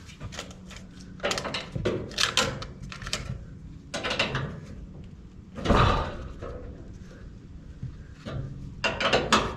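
Tools and parts being handled during gas-line work: irregular clattering and clinks, with one louder knock about six seconds in.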